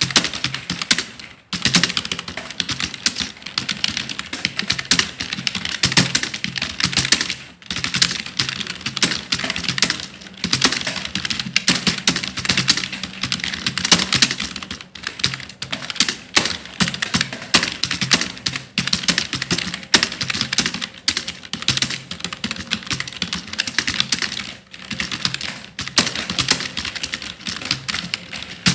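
Fast, continuous typing on a computer keyboard: a dense run of irregular key clicks, broken by short pauses about one and a half seconds in, around seven and a half seconds, and near the end.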